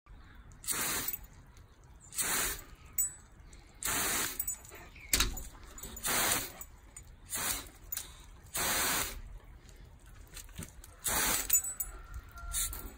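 A boxer's front paws scratching and scraping at a glass door in short separate strokes, roughly one every second or two.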